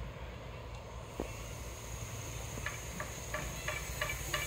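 Quick, even hammer taps on corrugated metal roof sheeting, about three a second, starting about two and a half seconds in, over a steady low background rumble.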